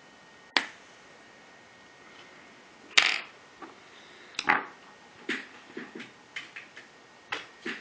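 Sharp clicks and snaps of a pry tool working the cracked screen of an iPhone 3GS loose from its frame. The clicks are irregular: a few loud ones early, then a quicker run of smaller ones.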